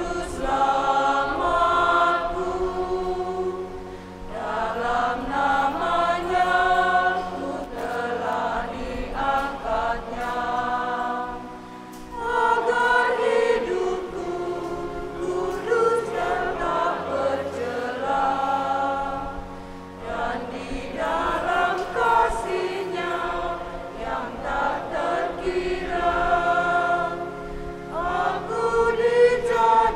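Church choir singing a hymn during the preparation of the gifts, in phrases of a few seconds each with short breaths between them, over sustained low accompanying notes.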